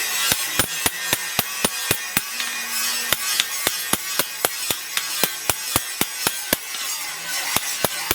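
Rapid, rhythmic hammer blows on steel at the anvil, about three to four ringing strikes a second, over a steady hiss. This is a blacksmith forging or cutting a piece of a brake disc.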